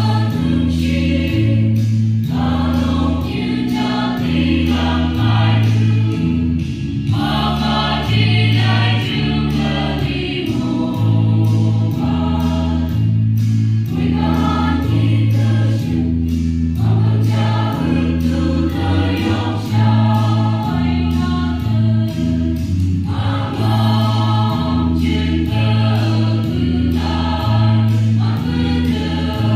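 Mixed choir of men and women singing together from songbooks, the voices moving over sustained low notes that change about once a second.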